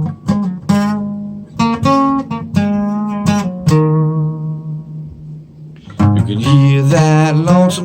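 Acoustic guitar picked note by note, each note ringing out, in a song's instrumental passage; near the end a singing voice comes in over the guitar.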